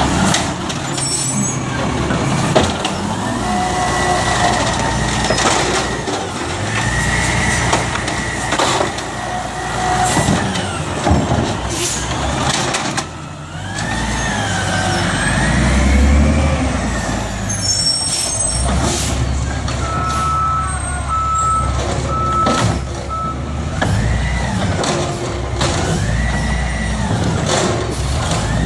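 Automated side-loader garbage truck at work: its diesel engine revs up and down repeatedly as the hydraulic arm lifts and dumps carts, with clanks and knocks of the bins and arm. A run of short beeps sounds about two-thirds of the way through.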